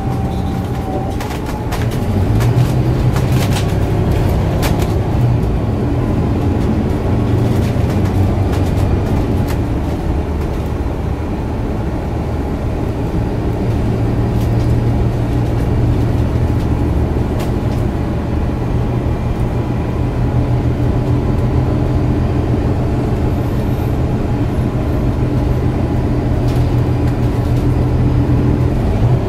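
MAN A69 city bus under way, heard from inside the passenger cabin: its 10.5-litre MAN D2066LUH six-cylinder turbo diesel runs with a steady low hum over road noise, getting louder and a little higher about two seconds in as it pulls harder. A few light rattles and clicks from the cabin fittings come in the first few seconds.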